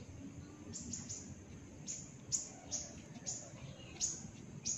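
A bird chirping repeatedly: short, high calls, each sliding down in pitch, coming every half second to a second, with the last few the loudest.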